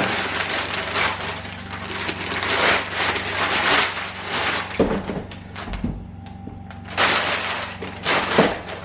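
Packaging being handled and rustled while a solar charge controller is unboxed, in irregular bursts of crinkling and scraping with a short pause about two-thirds of the way through.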